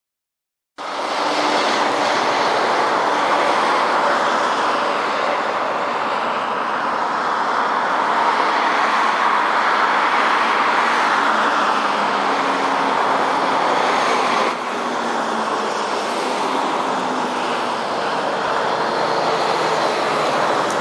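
A steady rushing roar of engine noise from a Boeing 787 airliner on final approach, mixed with road traffic. It starts suddenly about a second in.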